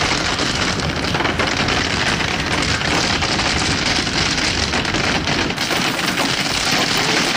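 Hail pelting down thickly onto the ground and parked cars: a dense, steady clatter of countless small impacts.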